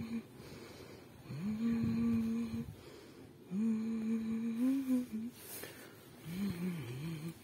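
A woman humming a slow tune with her mouth closed: two long held notes, then a shorter wavering phrase near the end.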